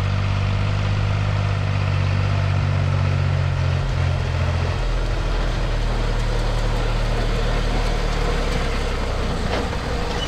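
Tractor engine running steadily; its deep hum shifts to a lower note about four to five seconds in.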